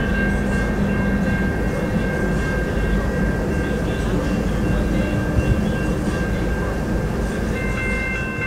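Passenger train cars rolling steadily past a level crossing: continuous wheel and rail rumble, with the crossing's warning bell ringing as a steady high tone over it.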